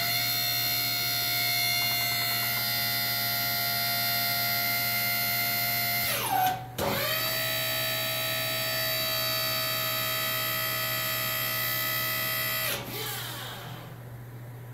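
The pump motor of a homemade hydraulic nut buster whines steadily as it drives a pipe wrench to break a tight packing nut loose on a hydraulic cylinder. It spins up, runs about six seconds, stops for a moment, then runs about six seconds more and winds down, over a constant low hum.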